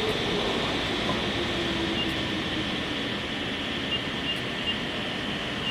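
Steady shop hiss with the faint whine of a TRAK CNC bed mill's axis servo motors and ball screws traversing under power, running quietly. A few short, high pips come near the middle and toward the end.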